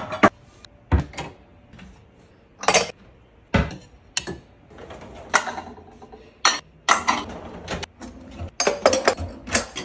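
Glass bowls and ceramic dishes clinking and knocking as they are set on a cabinet shelf and handled in a dishwasher rack: a string of sharp, separate clinks about a second apart. Near the end a kitchen drawer is pulled open with a cluster of quick knocks.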